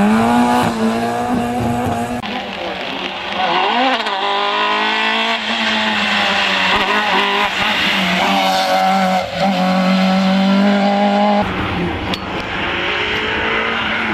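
Rally car engines revving hard at high rpm as the cars drive the stage, heard in several cut-together shots. The engine note holds high, dips and climbs again with gear changes, and is loudest at the start.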